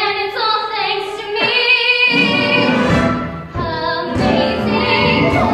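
Musical-theatre song: several voices singing sustained notes together over instrumental accompaniment.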